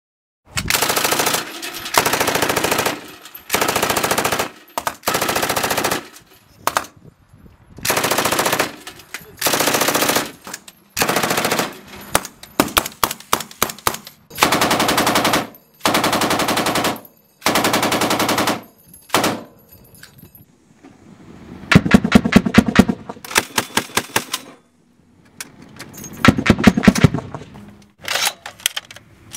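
Automatic gunfire sound effects: a string of short bursts of rapid fire, each lasting about a second, separated by brief pauses. Past the two-thirds mark come two louder runs of separate, spaced-out shots.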